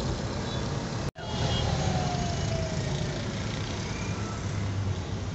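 Car engine and road noise heard from inside the cabin: a steady low hum that drops out for a moment about a second in, with a faint falling tone soon after.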